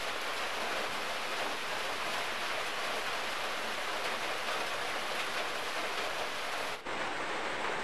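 A steady, even hiss, with a brief dropout about seven seconds in.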